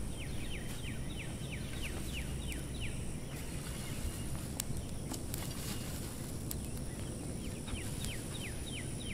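A songbird singing two runs of quick, downward-slurred high notes, about four a second, one in the first three seconds and one near the end, over a steady outdoor background hum.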